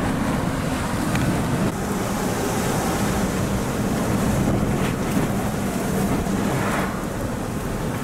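Steady rush of strong wind and road noise in a moving car, with a low engine hum underneath.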